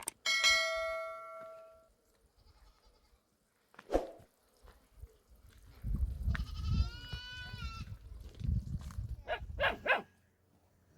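A metallic clang at the start that rings and fades over about a second and a half. A goat bleats once in the middle, with the pitch rising and then falling, and a few short calls follow near the end.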